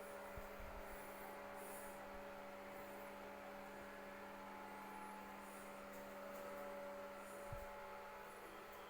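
A steady, faint electrical hum, with a couple of faint low knocks.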